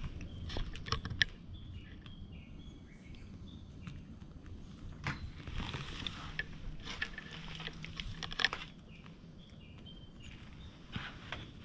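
Light clicks and soft rustling from a cat moving about on a wooden table and being stroked, its small collar bell jingling now and then. Birds chirp in the background.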